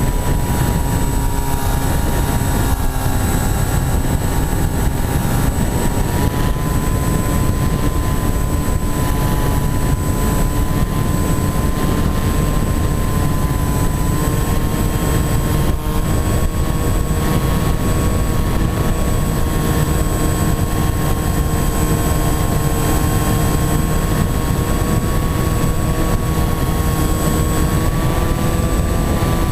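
Motor and propeller of a Wing-X foam flying-wing model aircraft in flight, a steady whine that steps up slightly in pitch a few times as the throttle changes, with wind rushing over the onboard camera's microphone.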